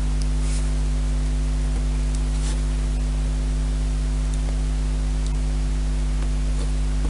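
Loud, steady low mains hum with a few faint overtones, unchanging throughout, and a few faint light clicks on top.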